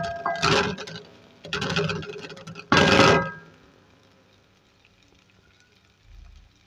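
Wooden spatula stirring and scraping frying onions and ginger-garlic paste around a metal karahi: three scraping strokes with a slight metallic ring, the last one about three seconds in the loudest. The stirring stops about three and a half seconds in.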